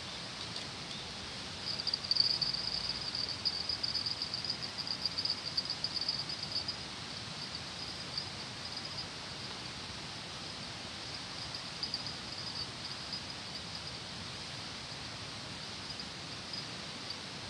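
An insect's high, rapidly pulsing trill over a steady outdoor noise bed. It starts about two seconds in and is loud for about five seconds, then comes and goes faintly and picks up again near the end.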